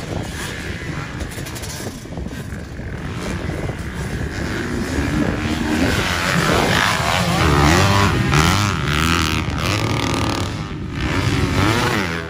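Motocross dirt bike engines revving, their pitch climbing and falling again and again, growing louder from about halfway through.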